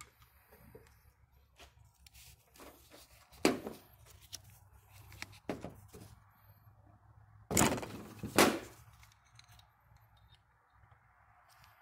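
Side cutters and pliers clicking and scraping on a fuel injector's aluminum end cap as it is pried at: scattered light metal clicks, with a sharp knock about three and a half seconds in and two louder, longer scrapes close together around eight seconds.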